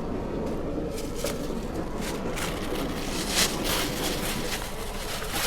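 A knife cutting raw chicken on a cutting board: a handful of short, sharp strokes at uneven intervals over a steady low background hum.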